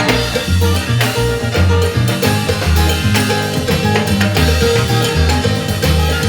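A salsa band playing, with a bass line and percussion keeping a steady beat.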